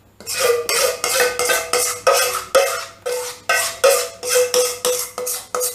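A metal spoon scraping and knocking against the inside of a stainless steel mixing bowl, about three strokes a second, each leaving the bowl ringing briefly, as thick chocolate batter is scraped out.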